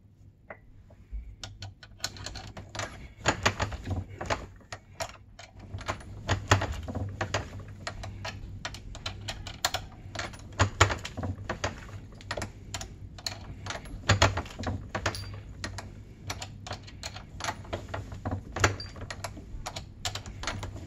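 Once-fired 6.5 Creedmoor brass cases being run through the decapping die of a turret reloading press: a busy, irregular string of metallic clicks and clinks as cases are handled, the press is worked and spent primers are punched out.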